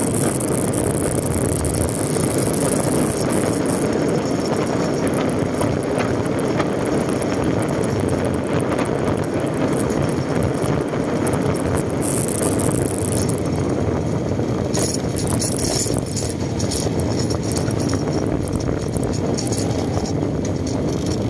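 Steady rush of wind and motorcycle engine and road noise, picked up by a helmet-mounted camera while riding. A thin high hiss sits over it for the first few seconds and again briefly about twelve seconds in.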